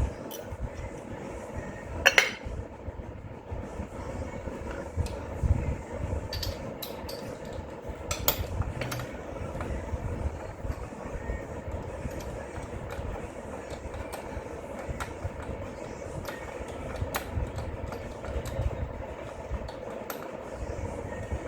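Hand tools and metal parts clanking and clicking now and then against the engine, with one loud clank about two seconds in, over a steady rumbling background noise.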